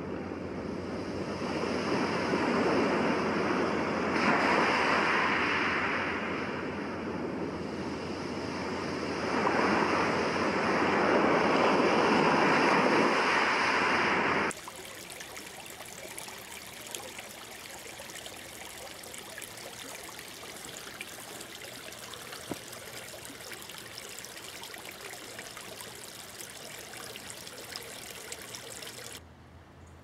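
Surf washing in, two slow swells of rushing noise. About halfway through it cuts off abruptly to a quieter, steady hiss with faint scattered ticks.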